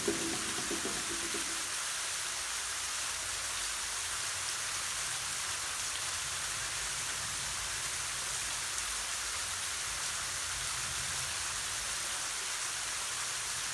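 Waterfall rushing with a steady, even hiss of falling water; a few sustained music tones fade out in the first second or so.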